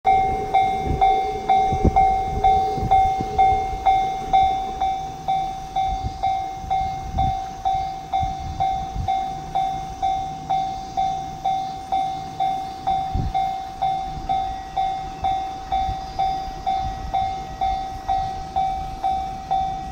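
Japanese railway level-crossing alarm ringing its 'kan-kan' warning bell, a steady pitched strike about twice a second, signalling that a train is approaching and the crossing is closed.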